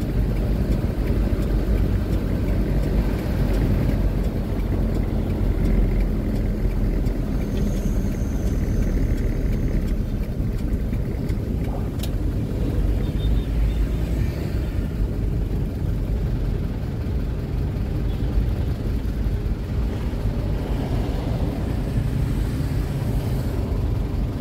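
Truck engine running with road noise while driving, a steady low rumble, with a brief click about halfway through.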